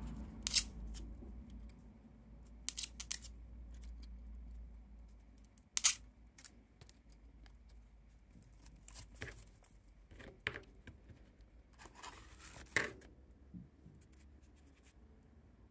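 Soft crinkles and scattered sharp little ticks of a paper strip being handled and pressed flat with fingertips over a pinned insect wing, the loudest tick about six seconds in.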